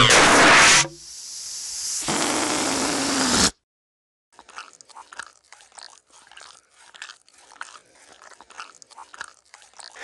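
Cartoon sound effects of an animated character: a loud hissing rush for about the first second, a second noisy stretch that cuts off abruptly about three and a half seconds in, then a short dead silence and faint scattered clicks.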